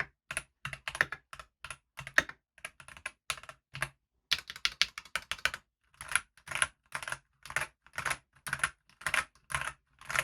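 Typing on a Keychron V1 tray-mounted mechanical keyboard, stock from the factory: a steady patter of key clicks, with a quick run of keystrokes about four seconds in and then slower, evenly spaced strokes about twice a second.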